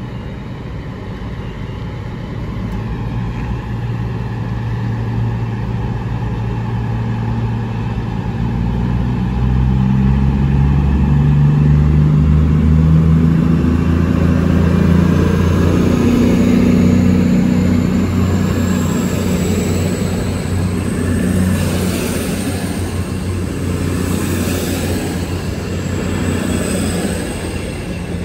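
The underfloor diesel engines of a Class 221 Super Voyager unit power up. Their note climbs in pitch and grows louder over roughly ten seconds, then holds. A faint high whine rises slowly through the second half.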